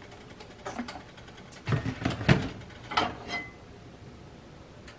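A few knocks and clatters of a nonstick pan against an electric coil burner as oil is poured in and the pan is lifted and tilted to spread it, the loudest a pair about two seconds in, with a short squeak soon after.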